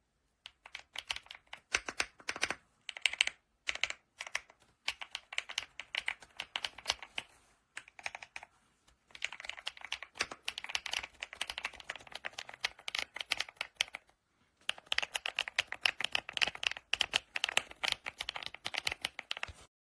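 Typing on a WOBKEY Rainy 75 aluminium mechanical keyboard with Cocoa switches: fast runs of keystrokes in bursts, with short pauses about 4, 8 and 14 seconds in, stopping just before the end.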